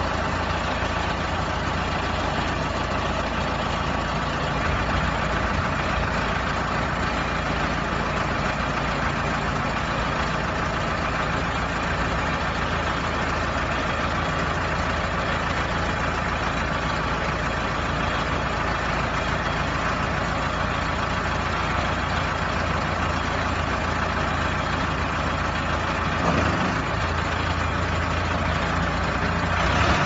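Cummins diesel engine of a self-loading concrete mixer running steadily, with one brief knock near the end.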